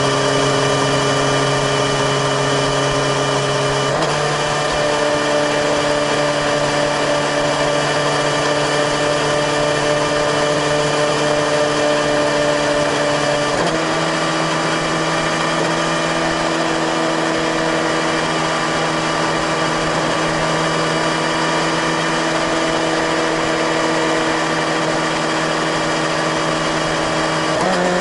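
Suzuki GSX-S1000GT's inline-four engine and exhaust running steadily at a constant cruising speed, with the note holding one pitch and then stepping up abruptly twice as the bike is shifted down a gear, each lower gear running at higher revs for the same road speed.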